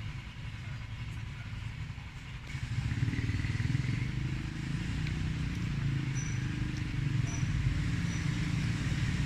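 A motor vehicle engine running steadily, getting louder about two and a half seconds in and staying at that level.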